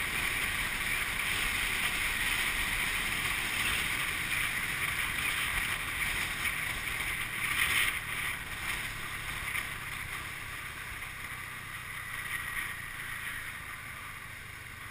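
Wind rushing over the microphone of a camera riding on a moving motorbike, with the bike's engine and road noise underneath. It swells briefly about halfway through and grows quieter over the last few seconds.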